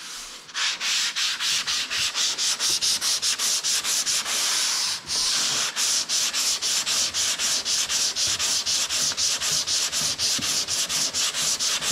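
80-grit sandpaper on a hand sanding block rubbed back and forth over cured fiber body filler, in quick even strokes of about four a second. There is a short break partway through. This is the coarse first cut that shapes the filler.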